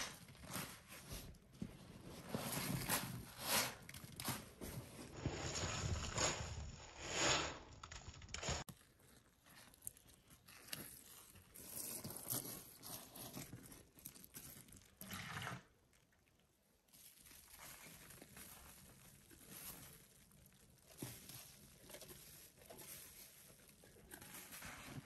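Foamy sponges soaked in pine cleaner paste, squeezed by rubber-gloved hands: wet, squeaky squelching in repeated squeezes. After a sudden cut about nine seconds in come quieter wet sounds of liquid poured over sponges sitting in suds.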